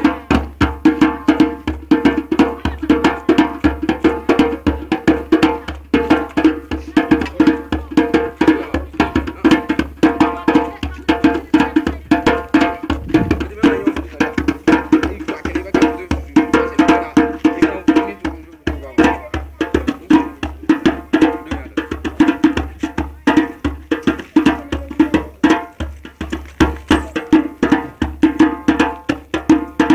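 Tan-tan hand drums played together in a fast, steady dance rhythm, with a dense run of sharp strikes.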